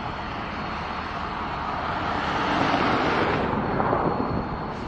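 Norfolk Southern SD70ACe diesel-electric locomotive running as it rolls away light engine, a low engine rumble under a rushing noise that swells to its loudest about three seconds in and then falls away.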